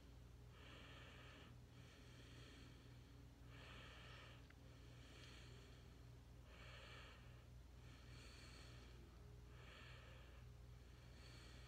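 Faint breathing close to the phone's microphone: soft hissy breaths in and out, coming evenly about every second and a half, over a steady low hum.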